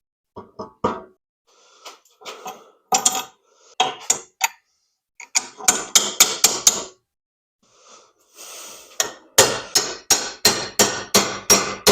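Hammer blows on a socket driving a rubber motor-cradle bushing out. There are scattered knocks and handling clatter at first, then from about nine seconds in a steady run of about three sharp strikes a second.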